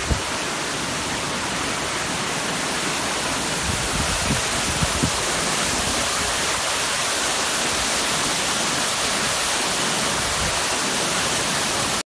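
Waterfall pouring steadily through a thick crust of ice, a constant even rush of falling water, with a few soft low bumps about four to five seconds in.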